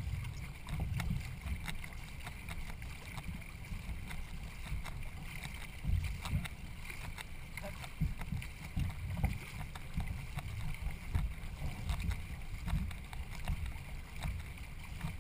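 Racing canoe out on the water: an uneven low rumble that swells and eases irregularly, with faint scattered clicks.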